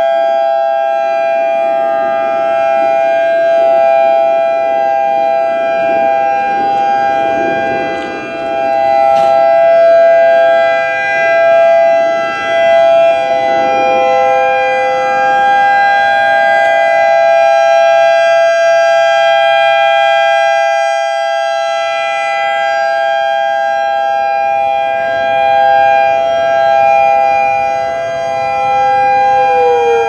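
Federal Signal EOWS 612 electronic siren sounding its steady alert tone, a chord of several held pitches. It swells and fades as the rotating six-horn array turns. Near the end the pitch starts to slide down.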